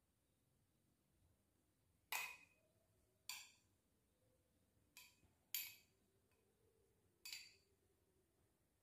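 Metal spoon clinking against a small glass bowl while mixing a thick fishing-bait dough: five sharp clinks at uneven intervals, each ringing briefly.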